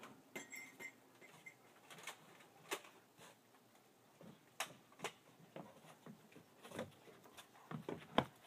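Faint, scattered taps and knocks, irregularly spaced and coming closer together near the end.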